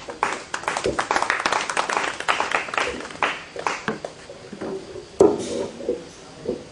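A small crowd clapping: dense applause for about four seconds that then thins out, with one sharp knock about five seconds in. The applause greets a speaker who has just been invited to the microphone.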